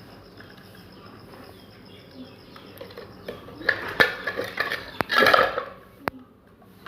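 Metal ceiling-fan fittings clinking and rattling as they are handled while the downrod is fastened with its screw and cotter pin: a burst of clicks and clatter about halfway through, then one more sharp click.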